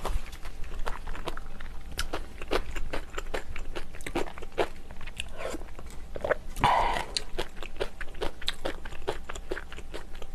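Close-miked eating sounds of someone chewing a mouthful of seafood and monkfish stew: a run of short, wet mouth clicks and smacks. A little past halfway comes one brief, louder rush of noise.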